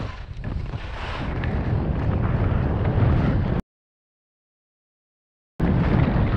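Wind buffeting an action camera's microphone, with skis scraping over chopped-up piste snow during a downhill run, growing louder over the first few seconds. Past the halfway point the sound cuts out completely for about two seconds, then returns just as loud.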